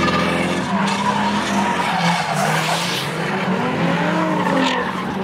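Car spinning donuts: tyres squealing and skidding while the engine is held at high revs, its pitch rising and falling.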